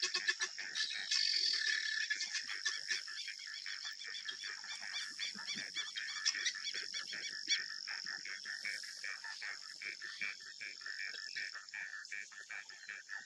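A continuous chorus of small wild animals calling: fast, rhythmic pulsed trills layered over one another, with a steady high-pitched whine running through them that fades out near the end.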